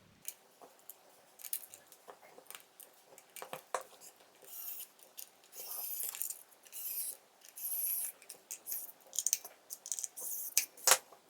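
Small plastic clicks, taps and scrapes of the alarm unit and its micro USB cable being handled. A few short rustling scrapes come in the middle, and a sharp click near the end is the loudest sound.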